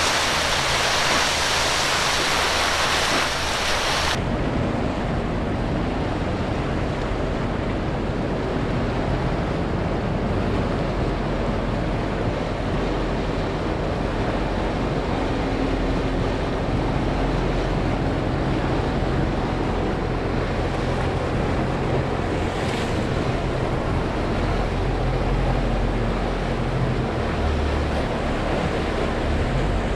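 Waves washing and wind buffeting the microphone, steady throughout. About four seconds in the hiss drops away abruptly and a lower rumble takes over, with a faint boat engine drone underneath the water noise.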